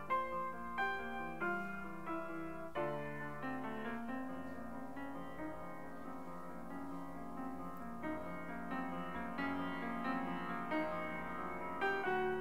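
Soft background piano music: single notes struck at an unhurried pace, turning into quieter, more closely spaced playing through the middle.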